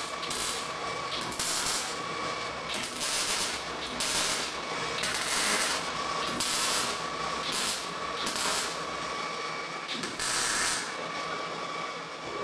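MIG welder tack-welding thin galvanized steel sheet onto a steel tube frame: a series of short crackling, sizzling arc bursts, about a dozen, each under a second, with brief pauses between them; one burst about halfway through runs a little longer.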